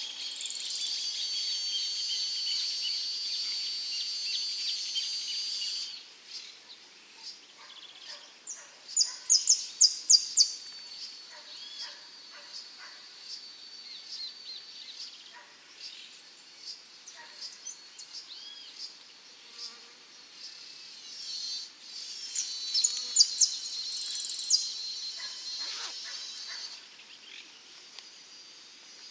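Saffron finch singing: three song phrases, each a quick run of high, downward-sweeping chips leading into a long buzzy trill, the first at the start lasting about six seconds, the second about nine seconds in and the third about 22 seconds in, with faint chips between them.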